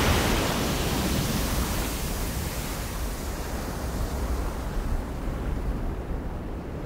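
Strong wind rushing, a gust that surges in just before and slowly eases off, with a deep rumble of wind underneath.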